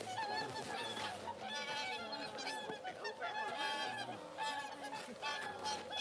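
A mixed flock of whooper swans and red-crowned cranes calling, many honking and trumpeting calls overlapping without a break.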